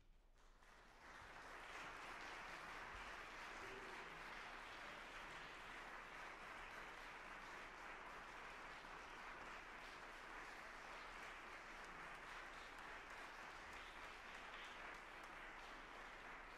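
Audience applauding, building up about a second in and then continuing steadily.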